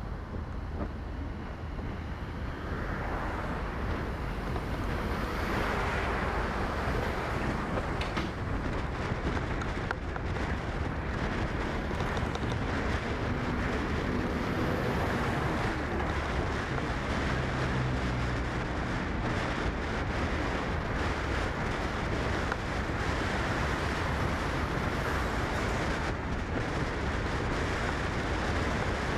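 Steady road and wind noise of a car driving, with wind buffeting the microphone.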